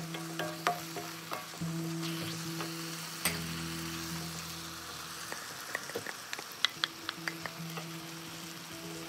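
Vegetables and moringa leaves sizzling in a stainless steel wok while a wooden spatula stirs them, with scattered clicks and taps of the spatula on the pan and a quick run of them about two-thirds of the way through. A steady low hum sits underneath.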